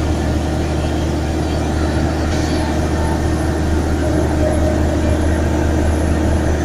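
Volvo Penta TAD1343VE six-cylinder diesel engine of a 1200 CFM, 330 PSI air compressor running at a steady, loud, deep drone. A short hiss comes about two and a half seconds in.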